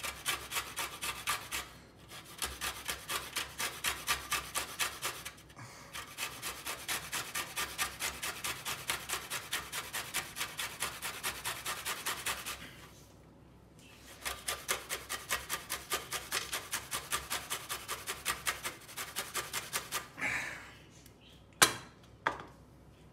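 Lemon rubbed up and down a metal box grater to zest it: rhythmic rasping strokes, about four a second, with brief pauses and a longer break about halfway through. The grating stops near the end, followed by a couple of sharp knocks.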